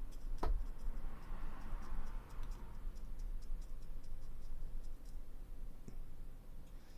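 Faint, regular ticking in a quiet room, with a sharper click about half a second in and another near the end.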